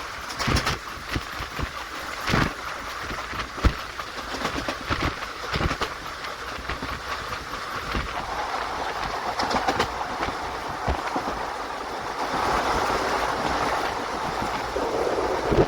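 Express passenger train running, heard from on board: a steady rumble and rush of wheels on rail with irregular clacks as the wheels cross rail joints. The rush grows fuller and louder about halfway through.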